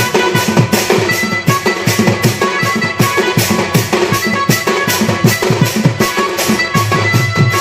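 Instrumental Koraputia khemta music: a Casio electronic keyboard playing a melody over fast, driving drum beats, about four strikes a second.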